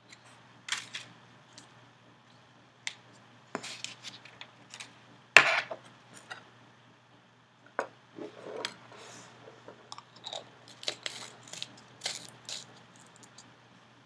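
A paper card, a dip pen and a Speedball ink bottle handled on a tabletop: scattered clicks, taps and short rustles. The loudest is a sharp knock about five seconds in.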